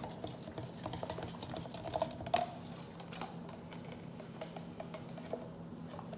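Spoon stirring in a plastic cup of milk mix: faint, irregular light clicks and taps.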